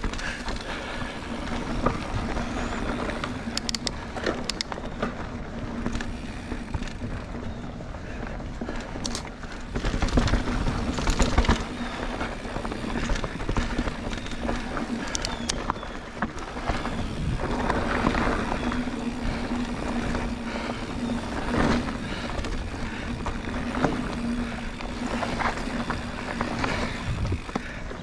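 Polygon mountain bike ridden over dirt singletrack: tyres rolling and crunching over the trail with frequent chain and frame rattles and clicks. A heavier jolting rumble comes about ten seconds in, as over a rough patch.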